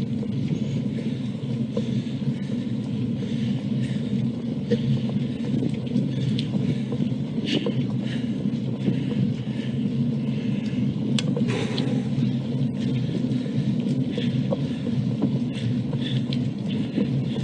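Steady rumble of a bicycle being ridden, tyre and road noise mixed with wind on the microphone, with scattered light ticks and knocks.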